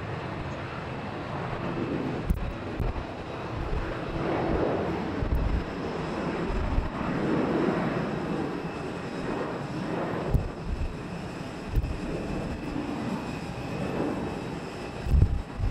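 Boeing 737 jet engines at takeoff thrust: a steady rushing jet noise that swells and eases in waves as the airliner rolls and climbs away. Several short, low thumps are heard through it.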